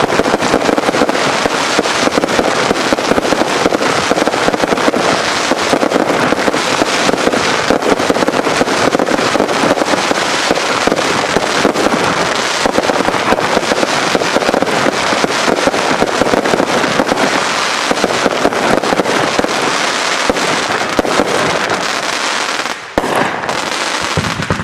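Several crackling fireworks burning at once, a group of AFW Crackle Mania and razzle items: a dense, continuous crackle of countless small pops. It dips briefly near the end.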